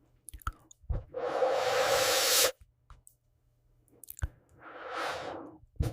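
Breath blown hard through a thin corrugated melodica hose: a rushing hiss with a hollow hum lasting over a second that cuts off sharply, then a softer breath through the hose that swells and fades. Small mouth clicks come before each breath.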